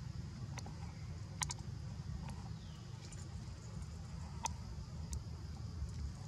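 Light, sharp clicks and crackles scattered about a second apart as a baby macaque handles pieces of dry peel on a rock, over a steady low rumble.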